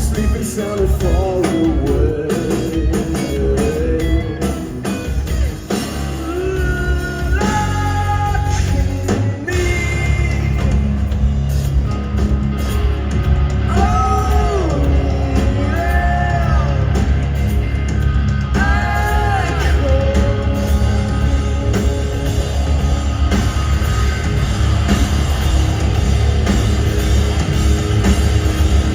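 Live rock band playing: a heavy, steady bass and guitar bed with a singing voice. The voice holds long, gliding notes from about six seconds in, fading out after about twenty seconds while the band plays on.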